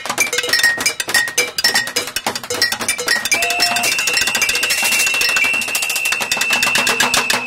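Fast street-percussion rhythm beaten with drumsticks on a plastic wheelie bin and hanging plastic bottles, with many quick strikes and short ringing pitched clinks. From about three seconds in, a long steady high tone sounds over the drumming.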